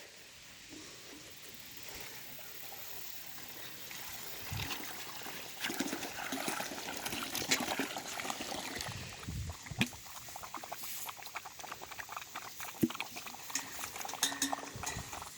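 Bernedoodle puppies lapping water from a bowl: rapid wet clicking and slurping that starts a few seconds in and keeps on.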